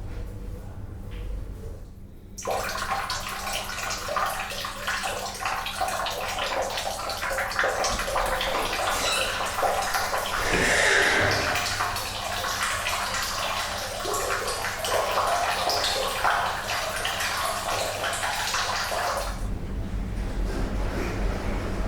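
Water running from a bathroom tap and splashing. It comes on suddenly about two seconds in and stops a couple of seconds before the end, leaving a low steady hum.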